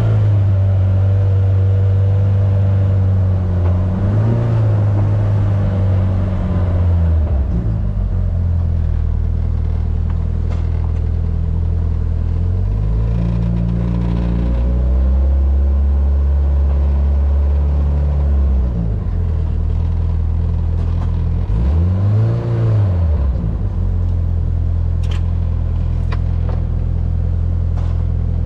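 A Polaris RZR Pro R's engine running steadily, its pitch climbing and dropping a few times with the throttle. About three-quarters through there is one quick rev up and back down.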